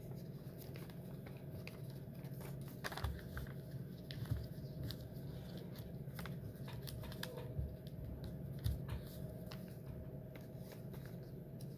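A sheet of paper being folded and creased by hand against a tabletop: soft crinkling and rustling with scattered light taps, over a steady low room hum.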